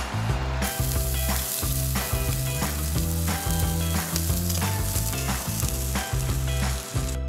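Fish sizzling on a wire grill rack over a wood fire pit, starting about half a second in, under background music.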